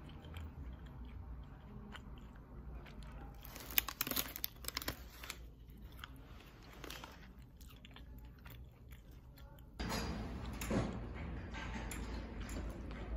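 A person chewing and biting into a flaky pastry sausage roll, with a cluster of crunchy bites about four seconds in. About ten seconds in it gives way to louder, steady low room noise.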